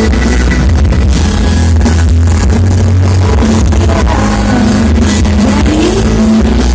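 Loud music with heavy bass and guitar, played through a large sound system.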